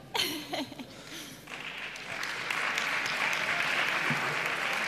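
Audience applauding, starting about a second and a half in and swelling to a steady level.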